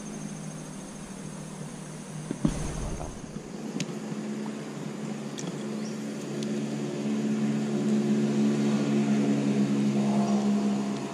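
A steady low mechanical hum that grows louder about halfway through, with one sharp thump a couple of seconds in and a few faint clicks.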